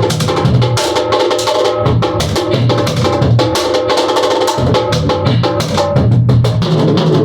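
A funk band playing live, led by a busy drum kit striking rapidly over low bass notes and held chords.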